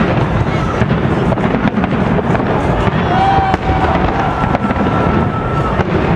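Aerial firework shells bursting in quick succession: a dense run of bangs and crackles over a continuous rumble, with a steady high tone held for a second or two near the middle.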